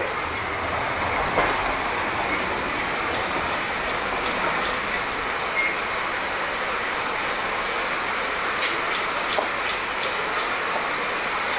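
Steady light rain falling, an even hiss with a few sharp ticks of drops scattered through it.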